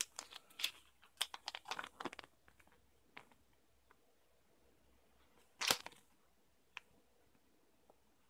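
Crinkling and tearing of a small plastic packet as it is opened, a quick run of crackles over the first two seconds, then the paper leaflet rustling with one sharp crinkle a little past halfway.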